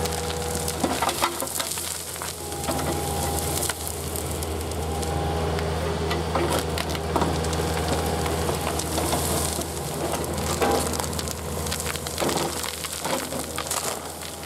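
A Komatsu PC-40 mini excavator's diesel engine runs steadily under load as it pulls a spruce stump out of the ground. Over the engine come repeated cracks and snaps of roots tearing and splintering.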